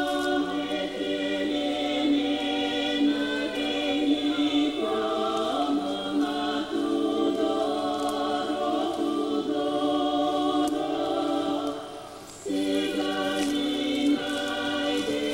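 Choral music: a choir of many voices singing slow, sustained chords, breaking off briefly about twelve seconds in before resuming.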